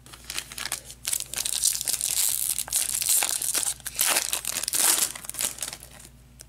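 Trading-card pack wrapper being torn open and crinkled by hand: a dense, crackling run of rustles and tears lasting several seconds, with a short lull partway through, easing off near the end.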